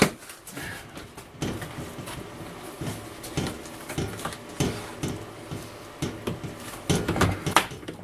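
Camper window being worked loose from its frame, held only by silicone-like sealant: a sharp crack right at the start, then irregular creaks and knocks as it is pried and pulled, louder about seven seconds in.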